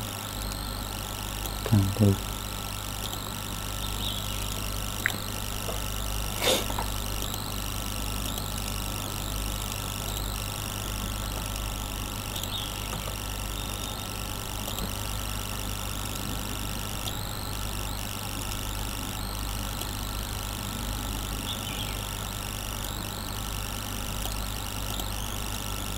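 Steady low electrical hum and background noise from the recording setup. A couple of soft low thumps come about two seconds in, and there are a few isolated clicks, the sharpest near the middle.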